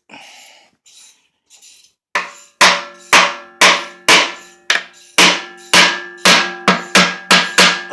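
A small hammer striking the aluminum case of a New Process 208 transfer case, about a dozen blows at roughly two a second after a short pause, each ringing. The blows are meant to break the seal between the case halves, and the case is starting to sound hollow as they loosen.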